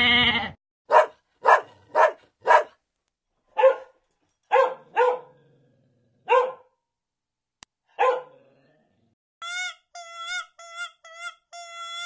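A dog barking, about nine short sharp barks with uneven gaps. It opens on the end of a long bleat, and from about three-quarters of the way in gives way to a run of short high-pitched squeaky calls.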